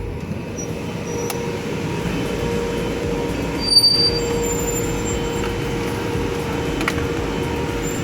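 Steady mechanical running noise of a vehicle in an emissions-testing lane, with a steady whine through it. A brief sharp sound comes about four seconds in.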